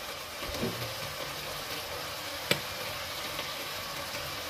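Julienned vegetables sizzling steadily as they sauté in a frying pan, with one sharp click about two and a half seconds in.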